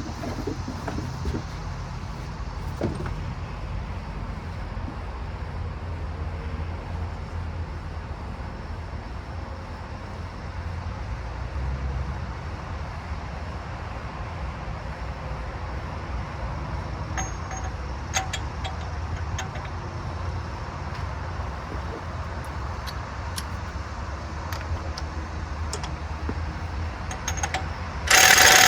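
Steady low rumble, with scattered light metallic clicks and clinks from hand tools in the second half. A much louder, harsh noise starts suddenly just before the end.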